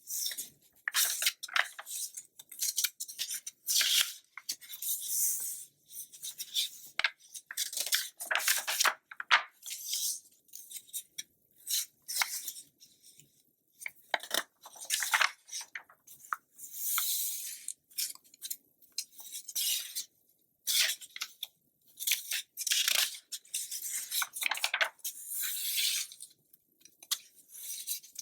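Magazine pages being turned and handled: a string of crinkly paper rustles and swishes, some sharp and some drawn out over about a second, with short pauses between.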